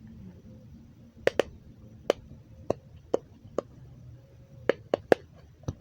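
Triple dimple fidget toy being pressed: its silicone dimples pop with about ten sharp, separate clicks at irregular spacing, a few in quick pairs.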